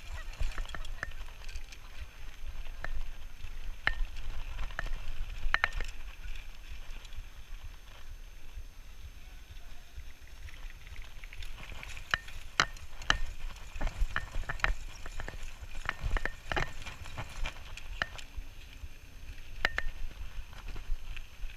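Bicycle rolling along a dirt path: a steady low rumble of the tyres on the ground, with irregular sharp clicks and rattles from the bike over bumps, thickest in the second half.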